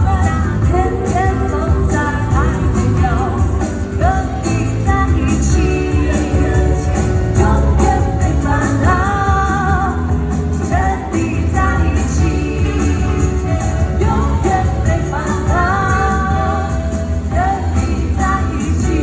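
Female vocal trio singing with vibrato over a live jazz band, with bass and drums keeping a steady beat on the cymbals.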